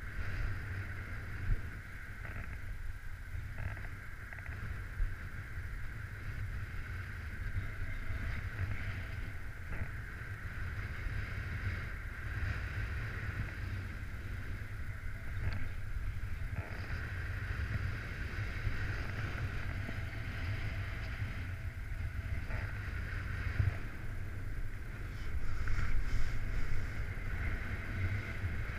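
Strong wind buffeting a camera microphone: a steady low rumble with a higher hiss above it, getting louder in gusts near the end as the paraglider gets airborne.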